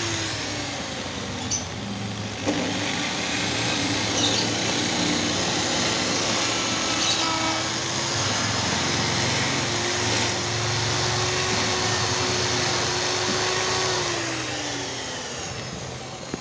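Electric drill boring screw holes into a laminated wooden table top. The motor winds down at the start, spins back up about two and a half seconds in and runs steadily under load, then slows down near the end.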